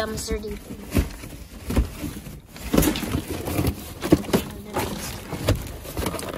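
Trash being rummaged through in a dumpster: paper and plastic rustling, with irregular sharp knocks and thuds.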